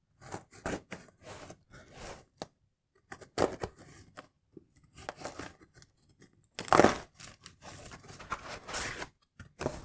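Small cardboard box being opened by hand: irregular tearing and scraping of packing tape and cardboard flaps, loudest in a burst about seven seconds in.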